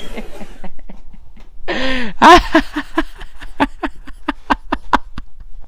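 A man laughing into a handheld microphone: one drawn-out pitched cry about two seconds in, followed by a quick run of short laughing pulses that fade toward the end.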